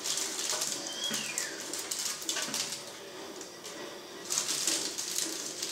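Parchment paper rustling and light clicks as dried apple slices are picked off baking trays and dropped into a glass jar. A short falling chirp sounds about a second in.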